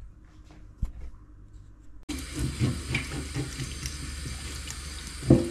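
Kitchen tap turned on suddenly about two seconds in, water running into a stainless-steel sink and over a fish on a wooden cutting board. Irregular knocks and scrapes of a knife working the fish on the board, with one louder knock near the end.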